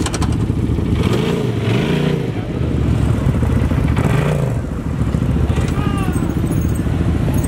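Side-by-side UTV engines running close by, a steady low idle with the pitch rising and falling a few times as an engine is blipped.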